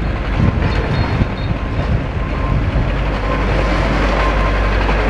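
Demolition excavators working a short way off: a steady low rumble, with wind gusting on the microphone.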